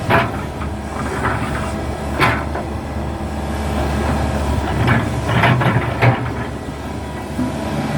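Hydraulic excavator's diesel engine running steadily, with several sharp metallic clanks and knocks from the machine working, clustered near the start, about two seconds in and between five and six seconds.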